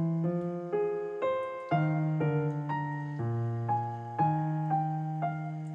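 Background piano music: a melody of struck notes, about two a second, over longer low bass notes.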